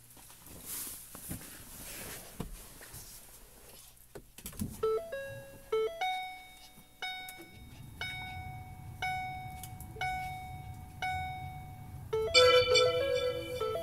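2013 Ford Focus Titanium's electronic dashboard chimes: a few quick two-note chimes, then a single chime about once a second, then a quick cluster of chime tones near the end, the car's system signalling as the ignition is switched on. A low steady rumble comes in about halfway through.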